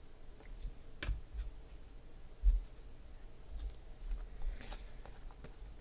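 Chrome football trading cards handled and flicked through by hand: faint clicks and rustles of card stock, with one dull thump about two and a half seconds in.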